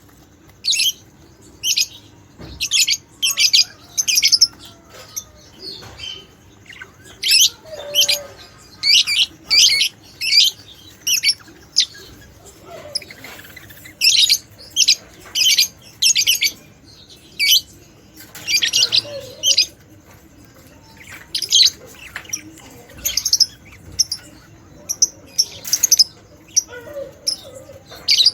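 Budgerigars chirping and chattering in short, scratchy bursts, calls coming in quick clusters every second or so.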